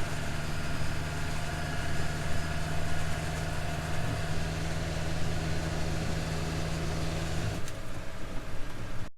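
Tractor engine running steadily with a low, even hum; the sound changes abruptly about seven and a half seconds in.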